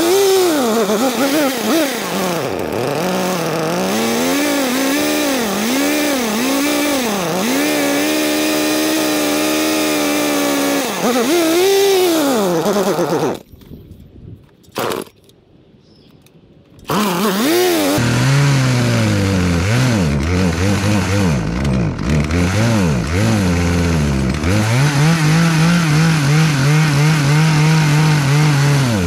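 Poulan Predator two-stroke chainsaw running unevenly, its engine note surging up and down, typical of the dirty carburetor the owner suspects. It falls quiet for a few seconds about halfway through, with a single click, then runs again at a lower pitch, still rising and falling.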